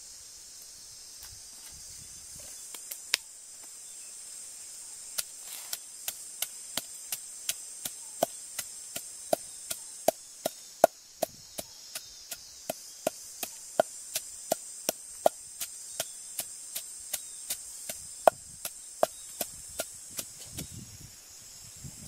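Wooden pestle pounding in a wooden mortar: sharp knocks, a couple at first, then a steady run of about three a second that stops near the end.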